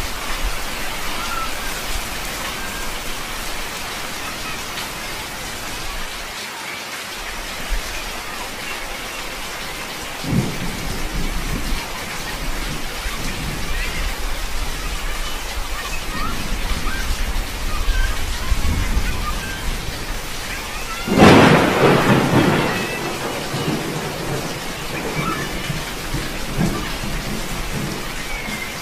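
Heavy rain falling steadily on a concrete street and roofs, with a sudden loud burst about three-quarters of the way through that trails off over a couple of seconds.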